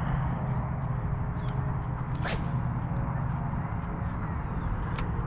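A fishing rod swishing once through the air in a cast about two seconds in, over a steady low outdoor rumble; a sharp tick near the end.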